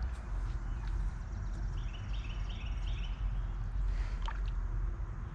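Water sloshing and trickling as someone wades and gropes through weedy shallow pond water. A bird chirps a short run of notes about two seconds in, and a few sharp clicks come near the end.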